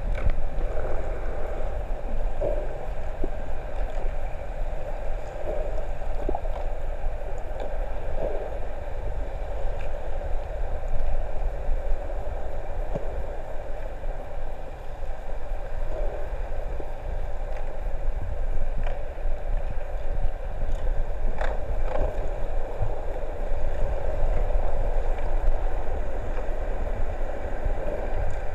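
Muffled underwater noise picked up by a camera in a waterproof housing held below the surface: a steady low rumble with a hiss over it and a few faint clicks.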